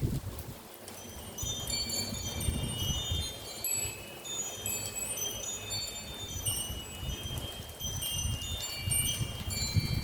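Wind chime tinkling in a light breeze: many short high notes ringing and overlapping, starting about a second in. Underneath is a low, gusty rumble of wind on the microphone.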